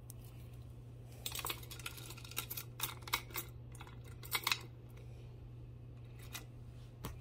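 Light, irregular clicks and clinks of small metal jewelry being handled, likely the gunmetal chain and lobster clasp, bunched between about one and five seconds in with a couple more near the end, over a steady low hum.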